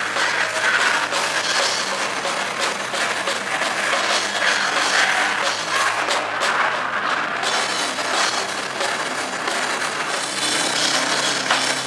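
Metal band playing live: distorted electric guitar over drums in a dense, unbroken wall of sound.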